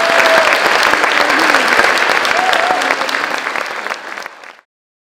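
Concert audience applauding steadily, with a few faint voices in it; the applause fades near the end and then cuts off abruptly to silence.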